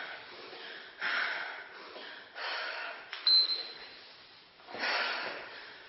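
A woman's sharp exhaled breaths from the effort of a bodyweight warm-up, one every second or two, each starting suddenly and fading. A brief high squeak about three seconds in.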